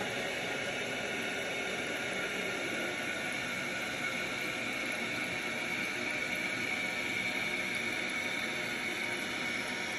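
Dual-flush toilet cistern refilling: the fill valve hisses steadily as water runs into the tank, with a faint whistle that grows a little stronger midway.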